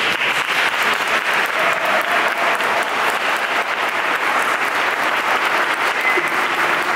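Many people applauding together, a dense, steady clatter of hand claps.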